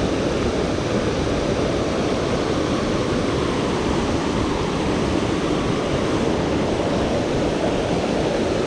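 Water spilling over a small dam as a man-made waterfall, rushing steadily without a break.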